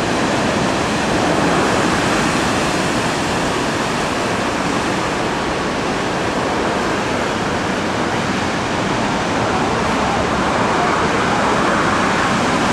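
Sea surf breaking and washing over a rocky shore, a steady rushing roar of water.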